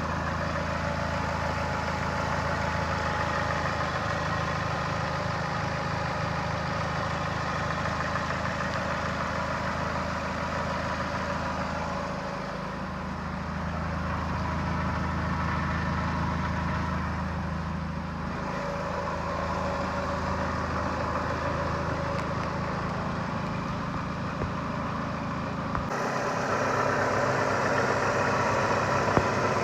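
Chrysler Voyager / Dodge Caravan 2.4 L four-cylinder petrol engine idling with a knock from underneath, around the fourth cylinder where the engine meets the A604 automatic gearbox. The owner traced the knock to a flexplate cracked around its crankshaft bolts, together with play in the balance shafts and a stretched balance-shaft chain. The sound changes abruptly about 26 seconds in.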